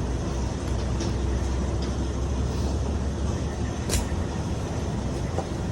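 Steady low rumble of an idling truck engine, with one sharp click about four seconds in.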